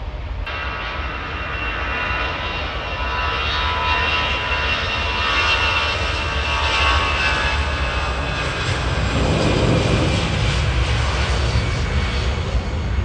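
Taxiing jet airliners' turbofan engines whining: several steady high tones that build up and then fade toward the end, over a constant low rumble.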